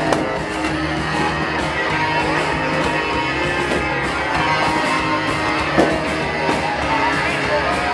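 Live band playing rock music, electric guitar strummed prominently.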